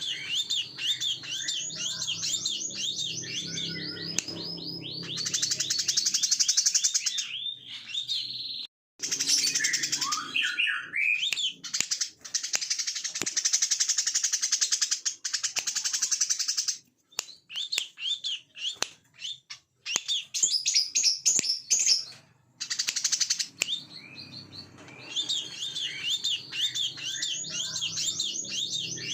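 Brown-throated sunbird singing: quick, high chirping phrases alternating with long, very fast buzzing trills, the 'ngebren' song, with a few abrupt breaks between stretches. A low hum runs underneath near the start and again near the end.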